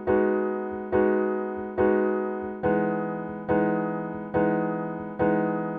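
Piano chords struck slowly and evenly, seven times, a little more than one a second, each ringing and fading before the next; the lower note of the chord shifts down a little under halfway through.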